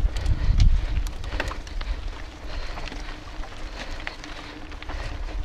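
Mountain bike ridden fast over rough dirt singletrack: knobby tyres rolling on dirt and the bike rattling and clicking over bumps, with wind buffeting the camera microphone, heaviest in the first second.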